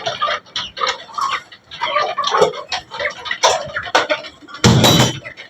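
Desi hens and roosters clucking, with many short clicks and taps throughout. About four and a half seconds in there is a loud, brief thump on the microphone.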